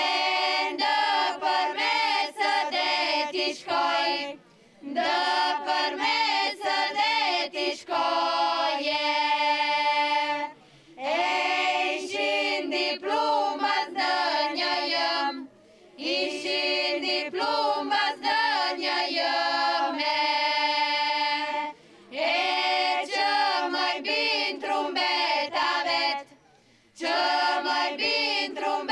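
A small a cappella group of young women singing a traditional Arbëreshë (Italo-Albanian) song in unison, in phrases of about five seconds with short breaths between them.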